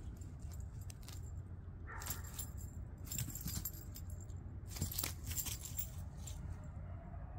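Metal tags on a dog's collar jingling in short clusters as the dog moves and runs about, over a steady low rumble.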